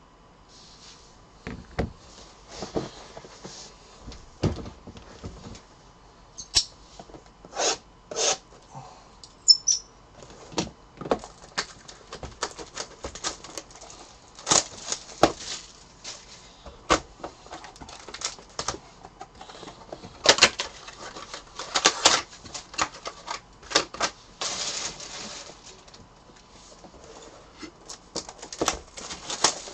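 Hands opening a shrink-wrapped box of football cards: a run of irregular clicks and taps on cardboard, with crinkling rustles of the wrapping. The longest rustle comes a little past two-thirds of the way through.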